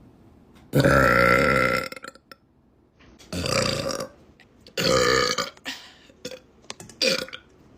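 A woman's loud burps: one long burp about a second in, two shorter ones after it, and a brief one near the end.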